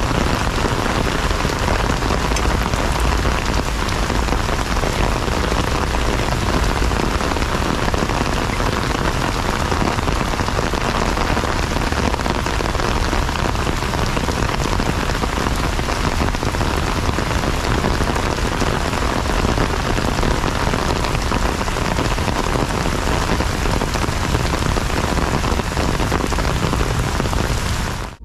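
Heavy rain falling steadily on paving, grass and trees, a dense unbroken hiss.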